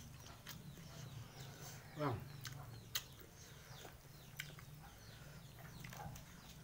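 Close mouth smacks and chewing from two people eating rice and noodles by hand, heard as scattered short clicks over a steady low hum. Faint bird chirps sound in the background, with one louder falling call about two seconds in.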